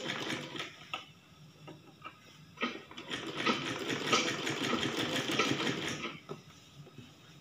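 Sewing machine stitching piping onto a fabric edge: a short run at the start, a brief pause, then a longer run of rapid stitching from about two and a half seconds in to about six seconds.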